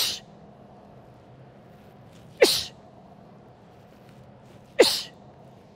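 A woman's sharp, forceful exhales, one with each explosive medicine-ball lead hook: three short hissing breaths about two and a half seconds apart, each starting with a brief falling grunt.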